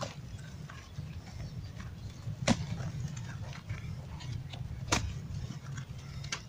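Hands crumbling and packing dry carabao manure into a flower pot: soft crackling and rustling, with two sharp clicks about two and a half seconds apart, over a steady low rumble.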